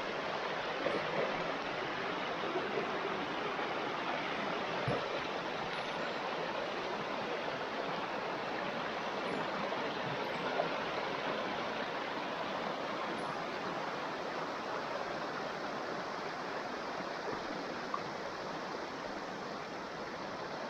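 Shallow mountain stream running over stones and small riffles: a steady splashing rush of water, a little softer near the end.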